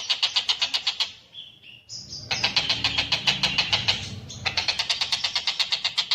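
Tengkek buto (kingfisher) calling a rapid run of harsh, repeated notes, about four a second. The run breaks off about a second in, a few short higher notes follow, and it resumes with a low rumble underneath for a couple of seconds.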